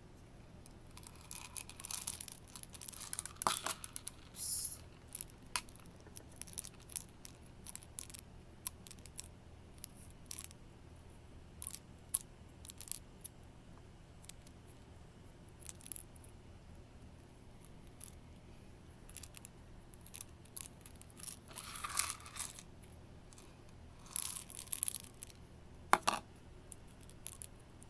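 Plastic airsoft BBs being dropped into a ping pong ball through a small hole, making scattered light clicks and rattles, with a few short stretches of rustling from handling.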